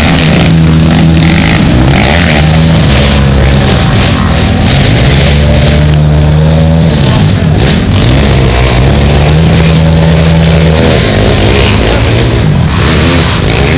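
Racing ATV engines revving hard, the pitch rising and falling again and again as the quads accelerate and shift, loud and close.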